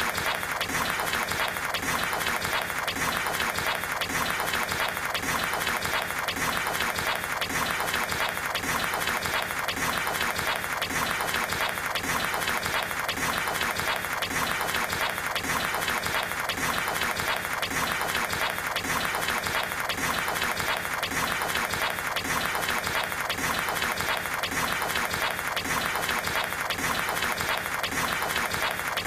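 An impossibly fast table-tennis rally: ping-pong ball hits on paddles and table coming so quickly that they blur into a steady, dense clatter with no break.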